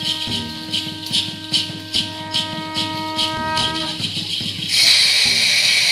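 Live dance music of shaken rattles keeping a steady beat at about three strokes a second, under one long held horn-like tone that stops about four seconds in. Near the end the rattling turns into a loud continuous shaking hiss.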